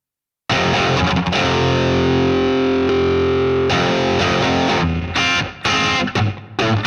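Electric guitar played through a DemonFx CK Compressor pedal into a Nux Amp Academy preamp. After a brief silence a chord rings out for about three seconds, then the guitar moves to short, choppy chords with small gaps between them.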